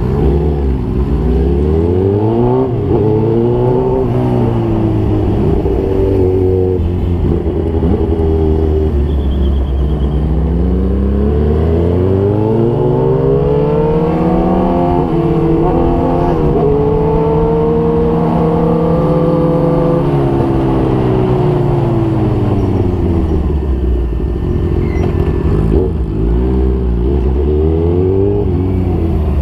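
Motorcycle engine running in slow traffic, its pitch rising and falling with the throttle several times, with one longer climb held high in the middle.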